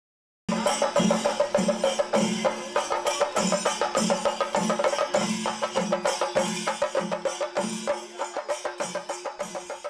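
Kerala temple drum ensemble (chenda melam): chenda drums beaten in a steady beat of deep strokes, nearly three a second, under a dense clatter of crisp strokes and cymbals, with a held tone underneath. It cuts in suddenly about half a second in and fades near the end.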